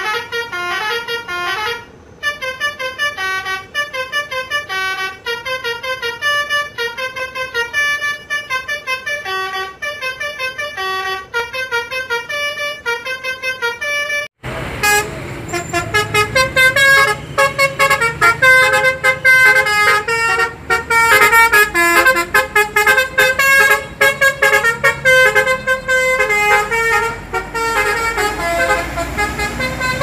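Basuri V3 multi-tone bus horn (telolet) playing a fast melody of short, clipped notes. About halfway through the sound cuts from a clean recording to a louder live one, with the horn notes over a low rumble.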